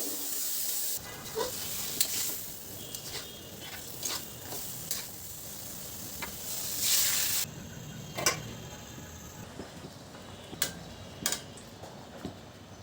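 Food sizzling in hot oil in a pan while a spatula stirs it, with several sharp knocks and scrapes of the spatula against the pan. The sizzle swells briefly about seven seconds in.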